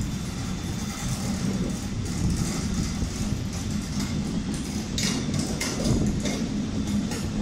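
Rake of passenger coaches rolling slowly past with a steady low rumble, and a few clanks from the wheels around five seconds in.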